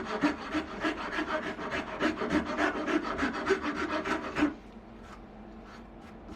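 A hand tool worked back and forth on wood in quick regular strokes, about three to four a second, stopping about four and a half seconds in; a few fainter strokes follow.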